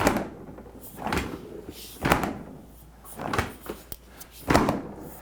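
Refrigerator doors being opened and pushed shut several times: about five short thuds and clunks, roughly one a second, as the newly replaced door stop latch is tested to see whether the door now stays shut.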